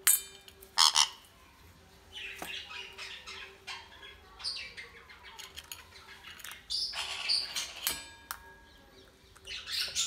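A conure squawking in short, loud, harsh calls, a couple about a second in and more around seven seconds, while it eats. Between the calls come small clicks and pecks of its beak against a stainless steel food bowl.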